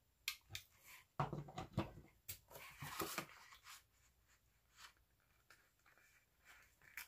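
Faint handling sounds of crafting: a few light clicks, then stiff poster board rustling and knocking as it is laid onto a freshly glued frame and pressed down by hand, followed by scattered soft ticks.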